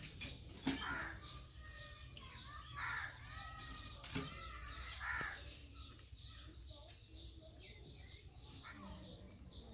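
A crow cawing three times, about two seconds apart, with a couple of sharp clicks in between.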